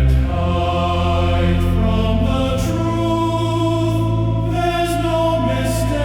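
Choir singing sustained, wordless chords over a steady low bass, the harmony shifting slowly about every two seconds.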